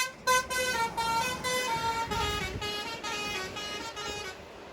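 Bus telolet horn, a multi-tone basuri air horn, playing a quick melody of short notes stepping up and down in pitch. It grows steadily fainter and stops shortly before the end.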